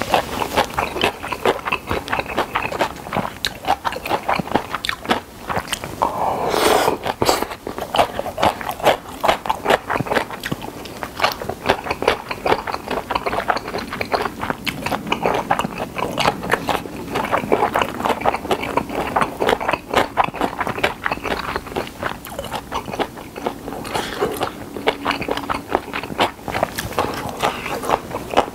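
Close-miked wet chewing and smacking of spicy sea-snail somen noodle salad with crunchy cucumber and carrot: a constant run of quick mouth clicks and squelches, with a longer, louder noisy stretch about six and a half seconds in.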